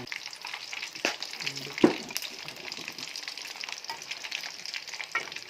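Chicken pieces frying in hot oil in a pan on a gas stove, a steady sizzle and crackle. A few sharp clicks and knocks sound over it, the loudest a little under two seconds in.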